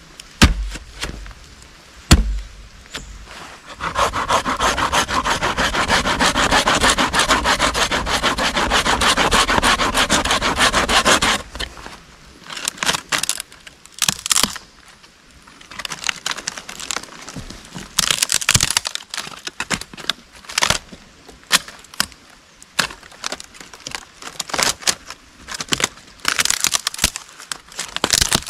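Two sharp knocks on wood in the first couple of seconds, then a hand saw cutting into a shattered dead tree stump in a steady run of strokes for about seven seconds. After that, dry wood cracking and splintering in short snaps as strips are pried and torn off the stump.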